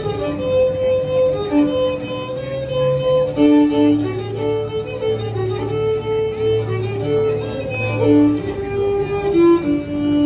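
A fiddle playing a tune with an acoustic guitar backing it, the guitar's low bass notes and chords under the fiddle's melody.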